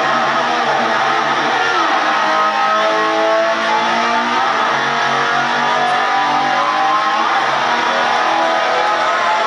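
Live rock band with an electric guitar played with a slide, its notes gliding up and down in pitch to imitate a revving motor scooter.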